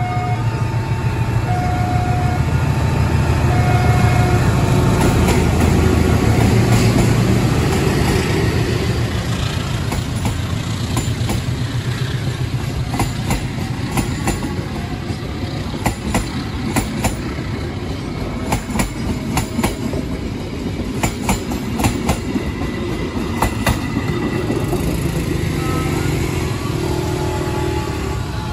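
A diesel-hauled passenger train passes. The locomotive's engine rumbles by over the first several seconds, then the coaches roll past with repeated clacks of wheels over the rail joints.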